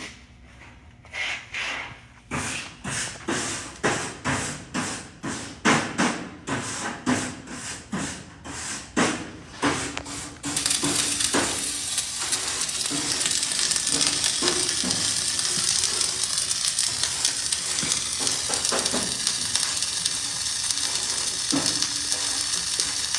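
A run of short strokes, about two a second, for the first ten seconds, then a flux-cored welding arc crackling and sizzling steadily from about ten seconds in.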